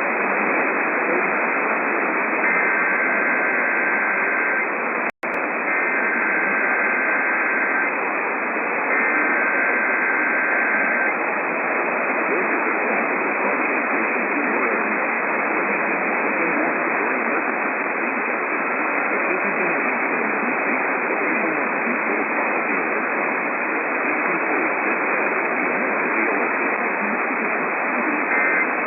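Heavy, steady radio static with three bursts of the EAS SAME header, the warbling two-tone digital data that opens an emergency alert, about two, five and nine seconds in. More short data bursts begin at the very end.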